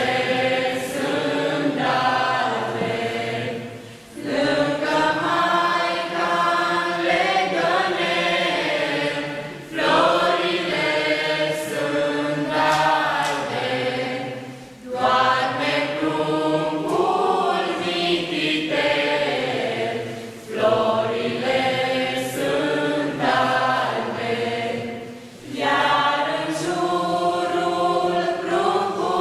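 A small group of young singers singing a Christmas carol (colind) together, in sung phrases of about five seconds with a short breath between each.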